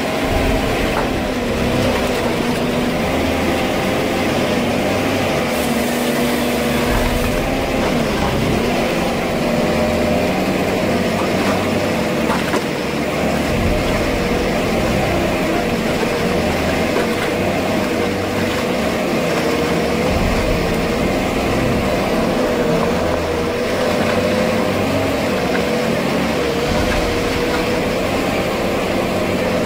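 Forest harvester running steadily, its diesel engine and hydraulics working the crane and harvester head, with a wavering tone riding on the engine noise.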